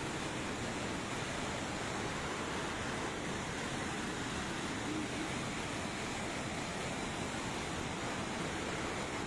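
Steady rushing noise of muddy floodwater pouring down a washed-out hillside in heavy rain, even and unbroken throughout.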